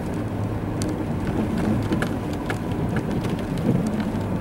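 Steady low rumble of a car driving slowly on a snow-covered road, heard from inside the cabin, with scattered light ticks throughout.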